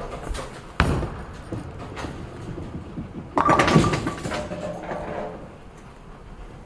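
Bowling alley sound: a sharp knock about a second in, then a bowling ball crashing into the pins about three and a half seconds in, the pins clattering with a ringing tone and fading away.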